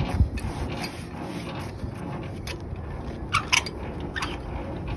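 JOST semi-trailer landing gear being hand-cranked in high-speed gear: the gearbox turns with a steady mechanical grinding and a few sharp clicks a little past halfway. It runs without scrubbing, a sound the mechanic judges okay after greasing.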